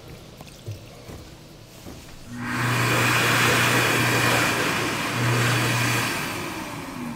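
The built-in hand dryer of an Acorn all-in-one slab sink, sensor-triggered, blowing. A loud rush of air over a steady motor hum starts about two seconds in and dips briefly midway. It then stops, and the motor's pitch falls as it spins down near the end.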